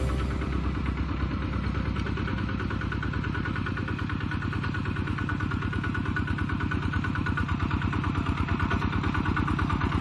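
Kubota RT-120 walking tractor's single-cylinder diesel engine chugging steadily under load while pulling a plough through soil, growing gradually louder as it comes closer.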